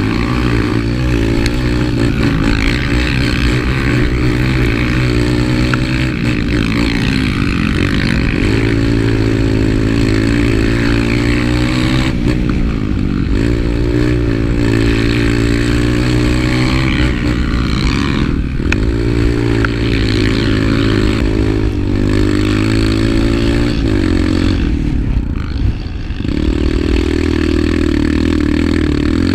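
Dirt bike engine under hard throttle, its pitch climbing and then dropping back sharply several times as it runs through the gears.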